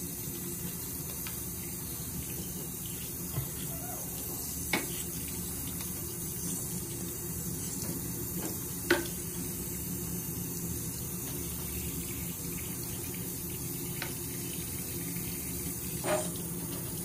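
Sink faucet running steadily, water splashing over a wet kitten held under the stream, with a few short clicks.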